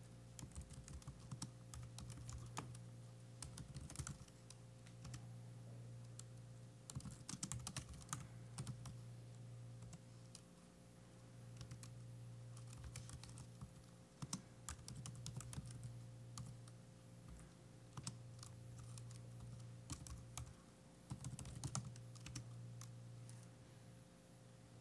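Faint typing on a computer keyboard: key clicks in several short bursts with pauses between, over a low steady hum.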